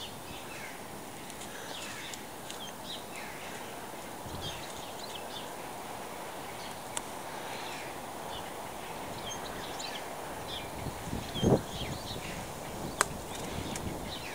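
Birds chirping throughout over a steady outdoor background hiss. A short, loud, low burst comes about eleven seconds in, and a sharp click follows a second and a half later.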